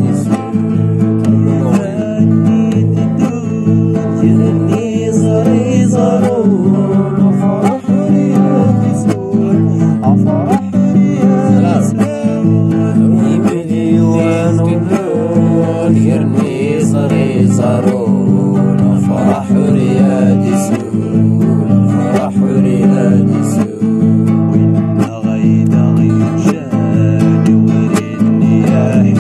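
Music led by plucked guitar over a steady, dense accompaniment, with a wavering melody line above it.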